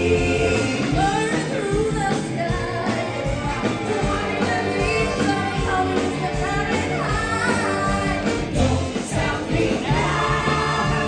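A song with a lead singing voice over instruments, playing steadily throughout.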